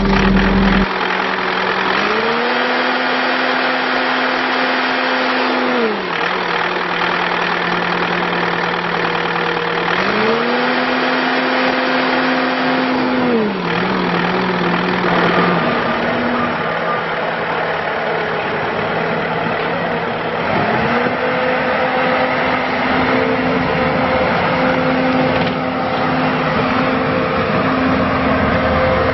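Bobcat T650 compact track loader's diesel engine running, its speed raised and held for a few seconds and then dropped back three times, the last rise holding near the end.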